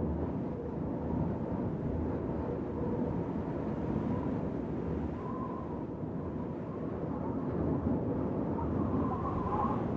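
Wind blowing as a steady, mostly low rush, with a faint wavering whistle.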